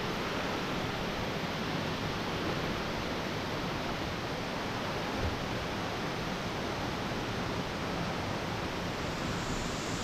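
Steady, even rush of falling water from a waterfall, with one soft low thump about five seconds in.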